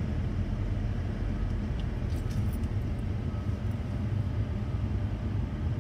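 A steady, low engine drone.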